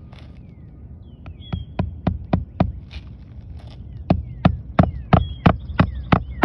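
Hammer driving nails into a roof shingle: two runs of quick strikes, five and then seven, about three to four a second.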